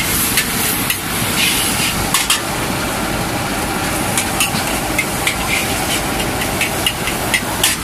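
Char kuey teow being stir-fried in a steel wok: a metal spatula and ladle clank and scrape against the wok again and again over a steady rushing noise.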